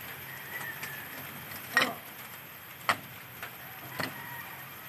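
Outdoor ambience with a steady low hum and a faint high bird call near the start, broken by four sharp knocks or clicks, the loudest about two seconds in.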